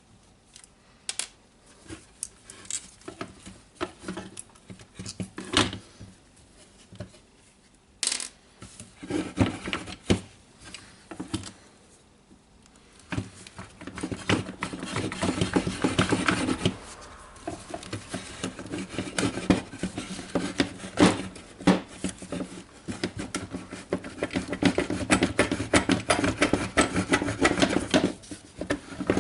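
Hands working on a disassembled cordless circular saw: scattered clicks and knocks of a screwdriver, screws and plastic housing parts, turning into steadier rattling and scraping about halfway through as the motor housing is worked loose.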